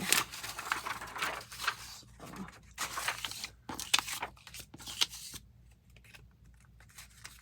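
Paper being handled: crinkling and tearing in irregular bursts, dying down after about five seconds.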